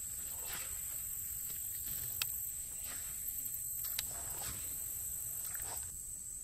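Steady high-pitched chorus of insects buzzing, with a few faint light clicks about two and four seconds in.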